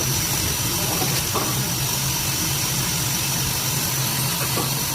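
Brake disc turning lathe resurfacing a car's front brake rotor: a steady motor hum with a thin high-pitched whine over a hiss, and a couple of faint ticks.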